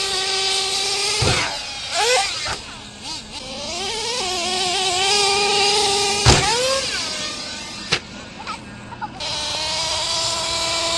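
Small two-stroke nitro glow engine of a radio-controlled monster truck running at high revs, its high pitch holding, dropping and climbing again as the throttle is eased and opened. Two sharp thumps break in, about a second in and about six seconds in.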